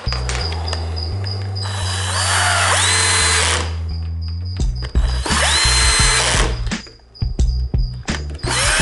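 Power drill driving screws into the plastic cage panels in three short runs, each whining up in pitch as the motor spins up and then holding steady. Quick clicks and knocks come between the runs.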